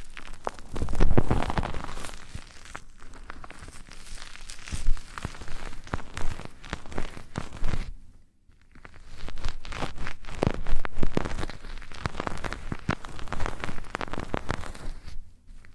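Close-up ASMR rustling and scratching right on the microphone's ears: dense, crackly rubbing strokes, with a brief pause about eight seconds in.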